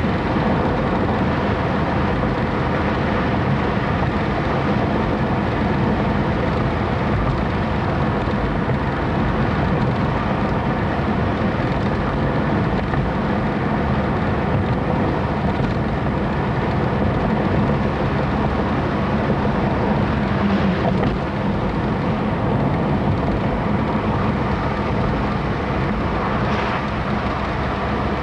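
Car driving at a steady speed: a constant engine hum under tyre and road noise.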